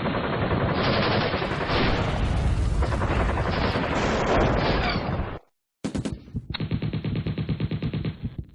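Gunfire sound effects: a long stretch of dense, heavy gunfire, then a short break, then a burst of rapid machine-gun fire with evenly spaced shots near the end.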